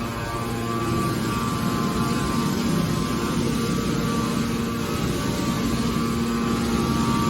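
Hydraulic metal baler running: a steady machine hum and drone, its main tone fading for a few seconds in the middle before returning.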